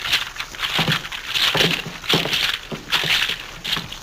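A pearl necklace rattling against a hidden microphone, picked up as a loud crackling noise in repeated surges, several to the second or so. To the audience it sounds like a thunderstorm: the sign of a badly placed microphone in an early talkie.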